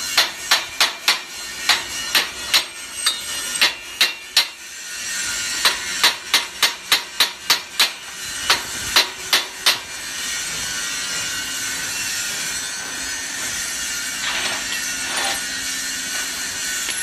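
Hammer striking the pins into an aluminium truss's connector joints: some thirty sharp, ringing metallic strikes in quick runs during the first ten seconds, then the strikes stop and only a steady hiss remains.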